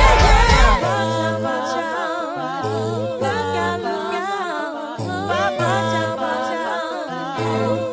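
Background music: layered sung vocal harmonies with vibrato over sustained bass notes, the drum beat dropping out about a second in.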